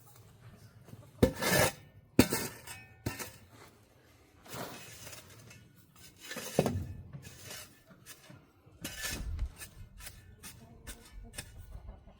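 Hole around a post being filled with dry concrete mix and soil: scraping and gritty pouring, with a few sharp knocks near the start, the first three about a second apart.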